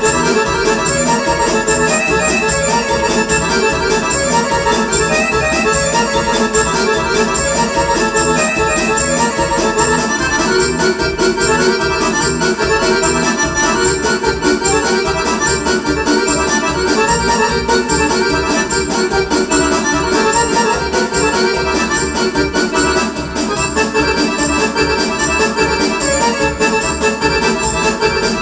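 Korg electronic keyboard played live: a continuous melody over a steady rhythmic backing beat, without a break.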